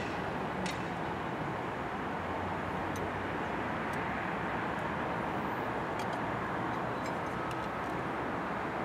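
Steady outdoor traffic noise, with a few faint clicks and taps from a metal transfer handle being fitted into the car door's latch striker.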